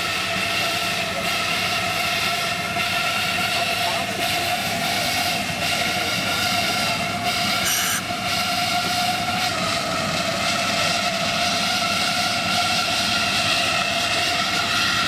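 Steady whine with a constant hiss from miniature live steam locomotives being steamed up at the bays.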